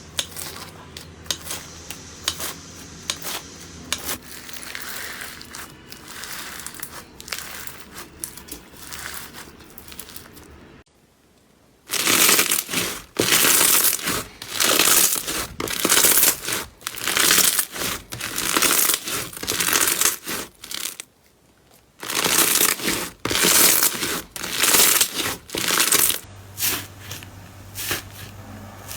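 Slime being squeezed and pressed by hand, crackling and crunching. It is softer at first, then after a brief pause comes loud crunching about once or twice a second, broken by another short pause.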